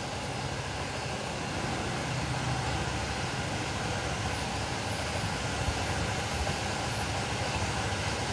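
Steady low mechanical hum, a little louder after about a second and a half, with one faint tick near the middle.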